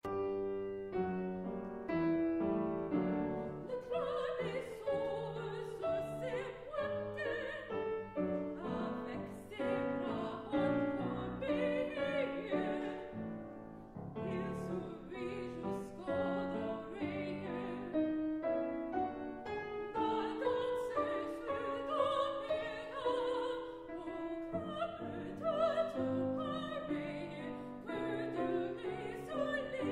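Soprano singing a classical art song with operatic vibrato, accompanied by piano.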